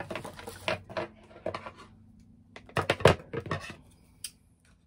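Handling of a plastic pouch of face masks: a run of rustles, clicks and knocks, loudest in a cluster about three seconds in, then one more click near the end.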